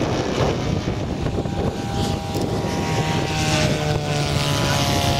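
Propeller-driven giant-scale radio-controlled model aircraft engine, a steady drone. From about three seconds in, an engine note falls slowly in pitch.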